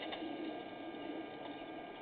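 A steady electrical hum with several fixed tones, and a faint click right at the start.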